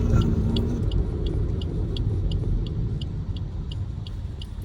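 Car cabin sound while driving: a steady low rumble of engine and road, with an even ticking about three times a second and a brief steady hum that fades out about a second in.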